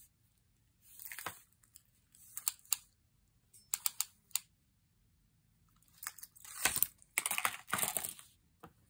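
Handling of a crocheted yarn strap: light clicks and rustles in scattered short bursts, with a longer, louder cluster about six to eight seconds in.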